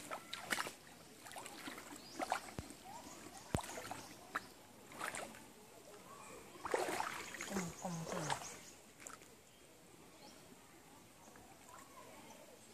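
Footsteps splashing in a shallow, rocky stream and stones knocking as hands search the streambed for crabs, with a short burst of voice about seven seconds in.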